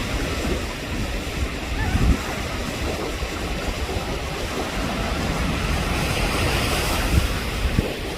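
Ocean surf washing steadily, with wind buffeting the microphone in uneven low rumbles. A wave's hiss swells about six seconds in.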